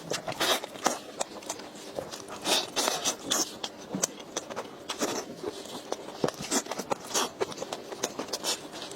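Close-miked chewing and mouth sounds: irregular wet smacks and crunchy clicks of food being eaten, several a second.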